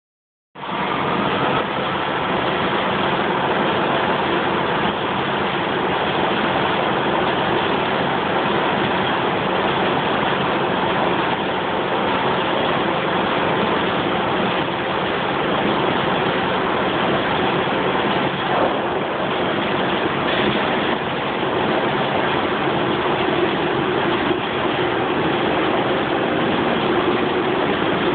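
Vertical glass washing machine running with a steady, even mechanical noise.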